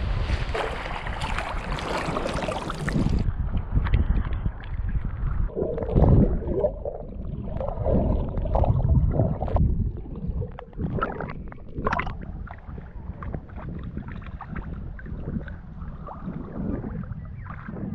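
Sea water splashing and sloshing around a GoPro held at the surface. About three seconds in, the camera goes under and the sound turns muffled, with underwater gurgling and sloshing and short ticks from the swimmer's movement.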